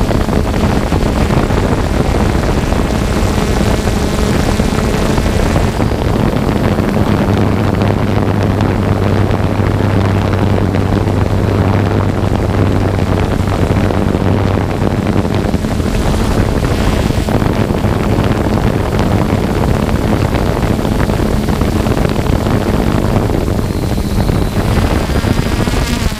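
3DR Solo quadcopter's motors and propellers running steadily in flight, picked up by the drone's own onboard camera: a constant hum under a loud rush of wind and propeller wash, with a deeper hum joining for several seconds near the middle.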